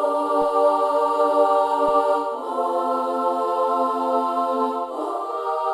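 A synthesized choir patch plays a slow melody of sustained chords, changing chord about two seconds in and again near the end. It plays dry, with no stutter or glitch effect, because the sound has not yet been routed to the Stutter Edit plugin.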